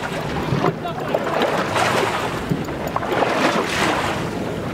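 Wind and choppy sea water around a small open boat, a steady rushing noise with wind buffeting the microphone.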